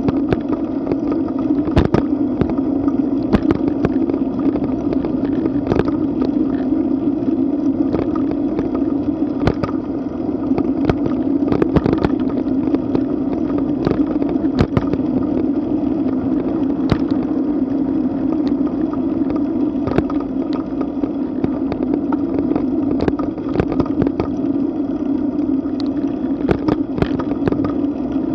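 Wind and road noise on a bicycle-mounted camera's microphone while riding at about 15 to 20 mph: a steady, loud rumbling hiss with frequent sharp clicks and knocks from bumps in the road.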